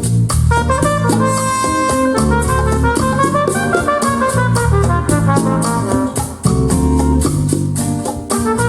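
Latin jazz with a brass section, bass and drum kit, played back through KEF Q11 loudspeakers: horn lines over strong bass notes and a steady cymbal beat of about four strokes a second, with a brief drop in level about six seconds in.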